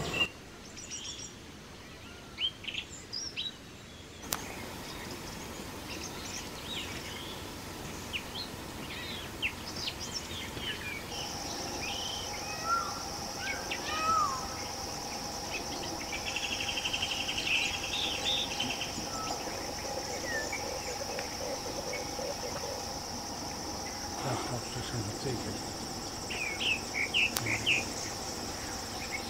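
Forest ambience of scattered bird chirps and calls. About a third of the way in, a steady, high-pitched insect drone joins and carries on to the end, and a brief pulsing insect buzz comes a little later.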